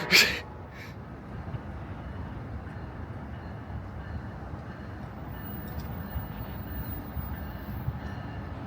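Amtrak train led by an SC-44 Charger diesel locomotive approaching, a steady low rumble that grows slightly louder toward the end. A short loud rush of noise comes right at the start.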